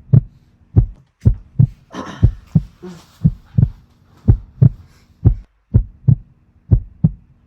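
Heartbeat sound effect: steady low double thumps, lub-dub, about once a second, laid in as a suspense track.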